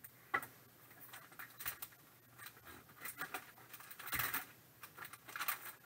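White plastic pouch rustling and crinkling as it is handled and opened, with light scratches and small clicks. The loudest crinkles come about four seconds in and again near the end.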